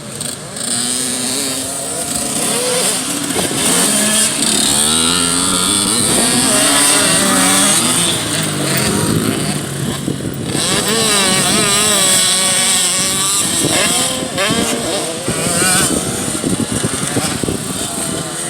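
Small two-stroke youth motocross bikes revving hard on a dirt track, several engines at once. Their pitch rises and falls over and over as the riders open and close the throttle and shift gears.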